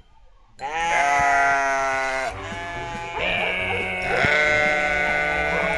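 Sheep-like bleating: after a brief silence, two long bleats, the second running longer.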